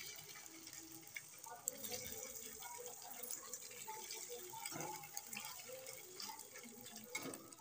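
Paneer cubes sizzling quietly in shallow oil in a kadai, a steady crackle with scattered small pops as they lightly fry.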